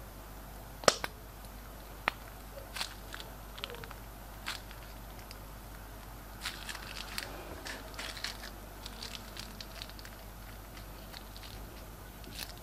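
Glossy slime being squished and worked, giving scattered sticky clicks and crackles. A sharp click comes about a second in, and a busier run of crackling falls around the middle.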